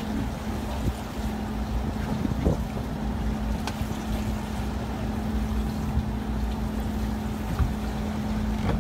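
A fishing boat's engine running steadily with a constant low hum. There is one brief click a little under four seconds in.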